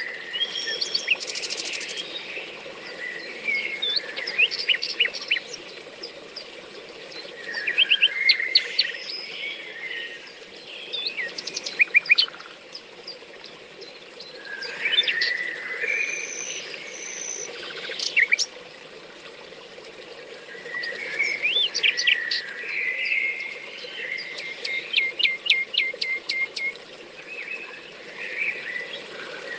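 Several woodland songbirds singing in early spring: short chirps and fast rattling trills in bursts every few seconds.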